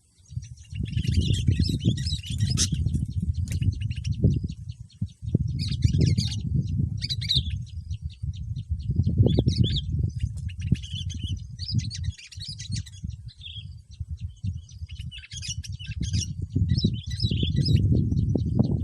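Bulbuls chirping in quick, scattered bursts over a gusting low rumble of wind buffeting the microphone.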